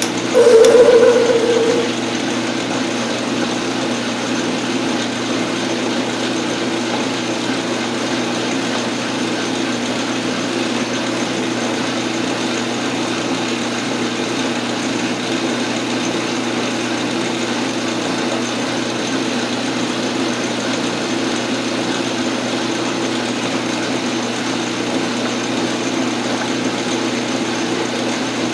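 Metal lathe running steadily while turning a slitting-saw arbor, with a steady mechanical hum from the spindle drive. Near the start, a loud pitched screech from the cutting tool on the work lasts about a second and a half.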